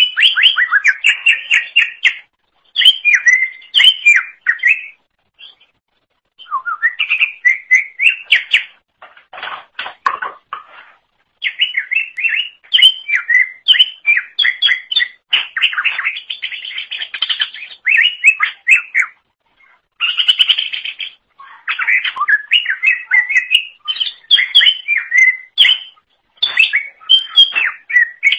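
Cucak ijo (green leafbird) singing loudly. It gives rapid runs of chirps and warbles in phrases a few seconds long, separated by brief pauses.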